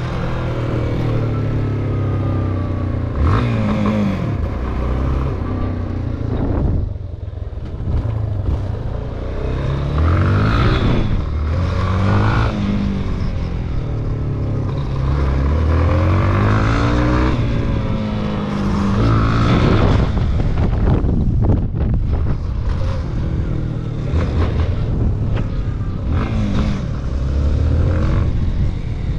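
Yamaha XTZ250's single-cylinder four-stroke engine running on the move, its pitch rising and falling repeatedly as the bike accelerates and eases off. Wind rushes over the helmet-mounted microphone.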